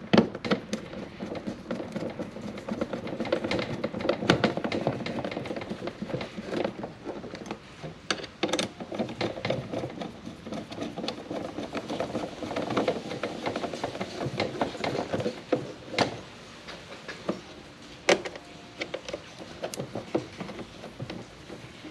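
A hand-held Phillips screwdriver tightens small screws into the plastic bracket of a Morimoto XB LED headlight housing. The screws and the plastic give irregular small clicks and creaks, and the housing knocks as it is handled.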